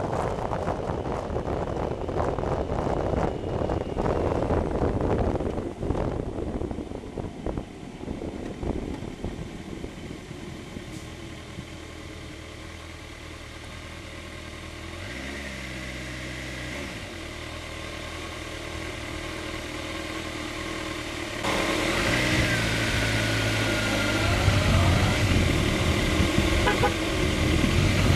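Sport motorcycle being ridden on the road: wind rushes and buffets over the microphone at speed for the first several seconds, then the noise drops as the bike slows in traffic and its engine can be heard running steadily. About three-quarters of the way through it gets louder as the engine pulls and traffic passes close by.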